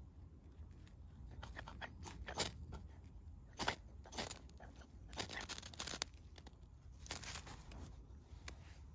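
A Cold Steel SRK knife blade scraped down a ferrocerium rod to strike sparks, as a series of short rasping strokes, the longest about halfway through.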